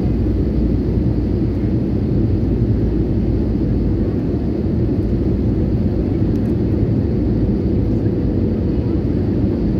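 Steady deep rush of jet engine and airflow noise inside an airliner cabin on its descent for landing, with a faint steady hum over it.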